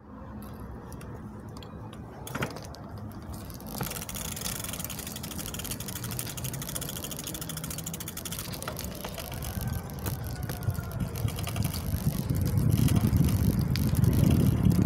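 KhVZ Sputnik bicycle being ridden over rough asphalt: tyre noise and rattle from the bike, with two sharp knocks a few seconds in. A low rumble grows louder near the end as the ride picks up speed.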